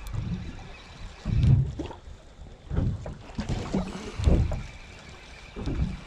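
Sea water slapping and lapping against the hull of a small drifting boat, in four or so low surges with a steady wash of sea and wind between them.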